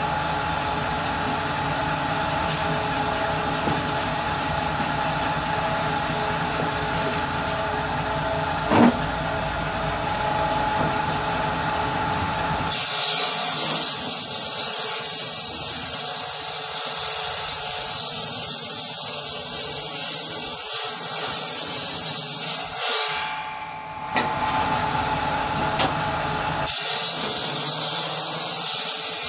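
Power saw running steadily, then cutting wood with a loud hiss in two long passes: one from about halfway through for some ten seconds, and another starting near the end.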